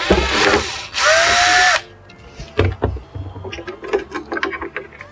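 Electric screwdriver running in two short bursts, backing out the screws that hold a small circuit board, its motor whine rising and dropping off in the second burst. Light clicks and taps of the screws and parts being handled follow.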